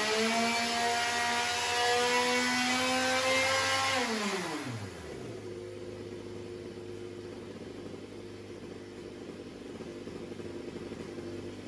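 IAME X30 125cc two-stroke kart engine at high revs under the load of a water-brake dyno, its pitch climbing slowly through the end of a power sweep. About four seconds in, the load comes off and the revs drop sharply, and the engine settles into a steady, quieter idle.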